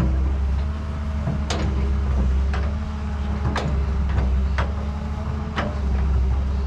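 Excavator running with a steady low hum, and sharp clicks about once a second.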